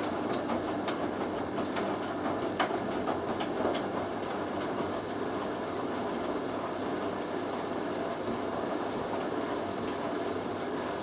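Hoover A3060 washing machine's motor turning the drum on an intermediate spin between rinses, a steady mechanical run with a few clicks and knocks from the drum in the first few seconds.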